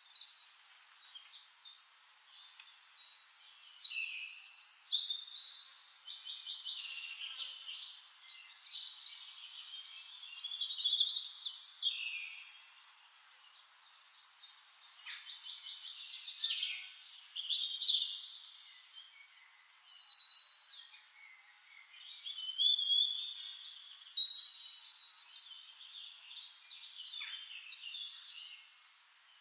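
Songbirds singing: a string of varied high phrases of rapid trills and chirps, one after another with short pauses between them.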